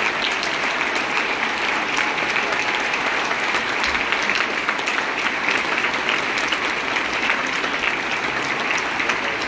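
Audience applauding, a dense, steady clapping that keeps up without a break.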